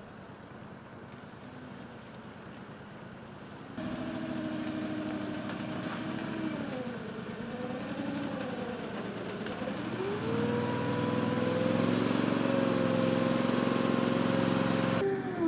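The engine of a wheeled amphibious boat running as it drives itself on land. After a quieter opening, the engine note wavers up and down, then rises about ten seconds in and holds steady at the higher pitch.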